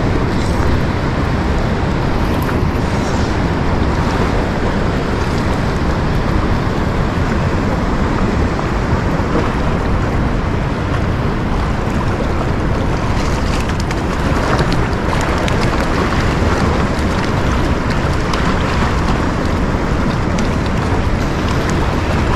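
Steady rush of flowing river water, mixed with wind buffeting the microphone.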